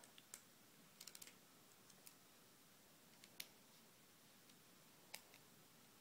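A few faint, sharp clicks of a small screwdriver working on the plastic underside of a laptop, with a quick run of four about a second in, against near silence.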